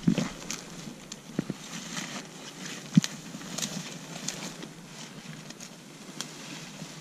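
Footsteps and rustling through long grass, with scattered sharp clicks and knocks from gear being handled, the loudest knock about three seconds in.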